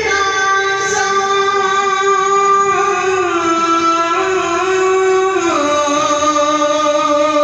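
Urdu naat singing: a voice holds long drawn-out notes without words, stepping down in pitch twice.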